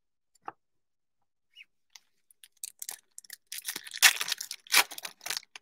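A foil trading-card pack of Select basketball cards being torn open by hand, its wrapper crinkling. A single click comes about half a second in, then a run of short, sharp tearing and crinkling noises from about halfway through, loudest near the end.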